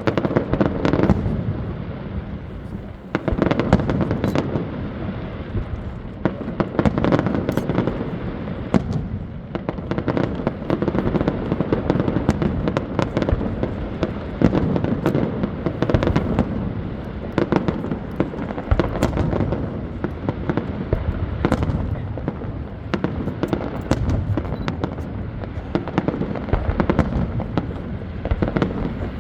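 Fireworks display: a continuous barrage of bangs and crackling, many sharp cracks piled over low booms.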